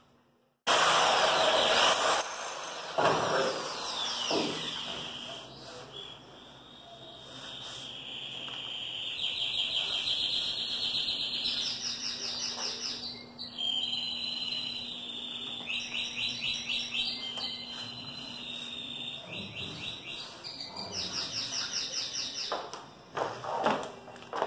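A loud burst of noise about a second in, then a bird singing a long, continuous high song with repeated fast trills.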